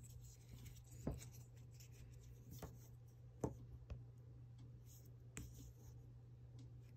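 Soft handling noise from a small SanDisk iXpand Go flash drive: about five faint clicks and taps, spread out, as it is turned in the fingers and laid on a desk. A faint steady low hum runs underneath.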